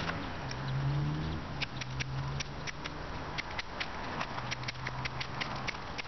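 Ferro rod scraped repeatedly with a striker, short quick strikes about three or four a second, starting about a second and a half in. A low, steady hum of traffic runs underneath.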